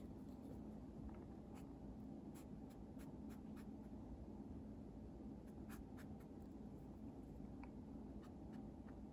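Faint sound of a watercolour brush at work: it picks up paint from a palette and makes soft strokes across paper, with scattered light ticks and a steady low hum underneath.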